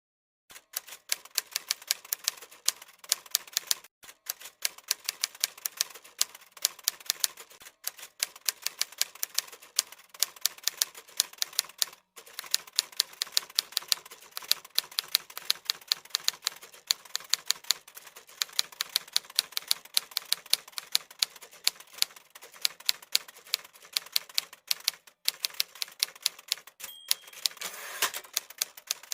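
Typewriter keys clacking rapidly and without a break, with a short bell-like ding near the end.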